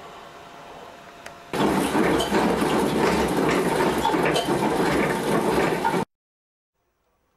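Home-built coal feeder on a central-heating boiler starting up about a second and a half in and running loudly, its rollers working coarse coal with a dense grinding crackle, then cutting off suddenly. A steady low hum comes before it.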